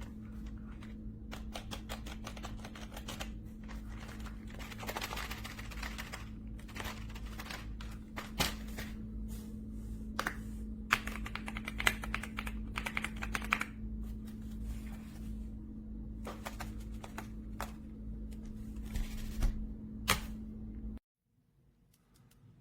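Typing on an RK Royal Kludge S98 mechanical keyboard with tactile switches: irregular keystroke clicks with fast bursts of keys, over a steady low hum. The sound cuts off suddenly near the end.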